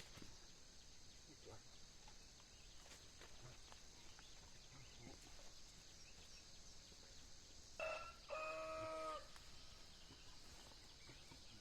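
Quiet rural background with a steady high hiss. About eight seconds in comes an animal call: a short note, then one even-pitched call of about a second.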